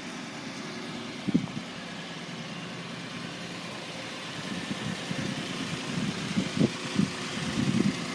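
A motor vehicle's engine running steadily, with a low thump about a second in and irregular low rumbles building in the second half.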